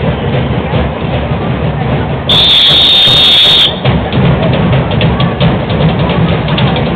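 A carnival comparsa's drum band playing a dense, pounding beat. A little over two seconds in, a loud, steady, high whistle blast lasts about a second and a half.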